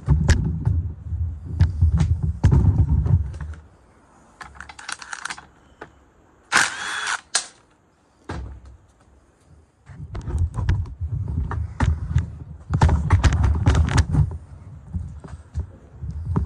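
Cordless power driver run in long rattling bursts at the start and again from about ten seconds in, backing bolts out of a large electric motor's end housing. Sharp clinks of metal parts on the bench come between the bursts.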